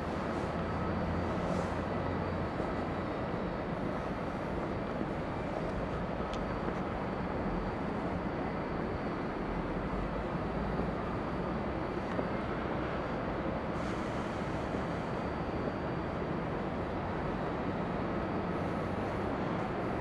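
Steady hum of city traffic: a constant wash of noise with no single vehicle or event standing out.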